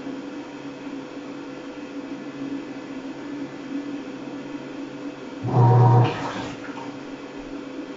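Sharp ES-KS70K-P washing machine at work: a steady hum, and about five and a half seconds in a loud one-second burst of motor hum that trails off into a water swish.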